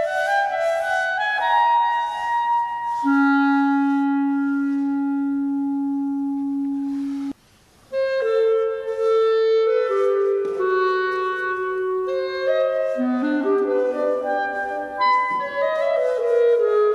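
Solo clarinet improvising: a few quick high notes, then one long low note held for about four seconds that breaks off sharply, and after a short pause a flowing run of shorter notes.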